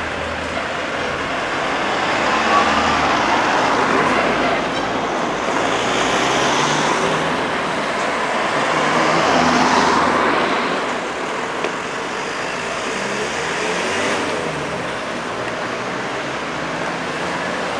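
Car being driven along a village road: a steady rush of engine and tyre noise that swells twice, about three and ten seconds in.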